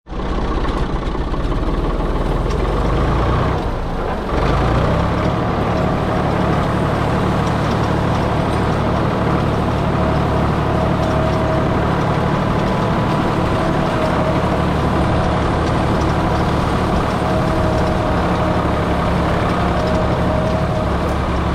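Ford 4610 tractor engine running steadily while pulling a hay rake, its note dipping and then picking up about four seconds in.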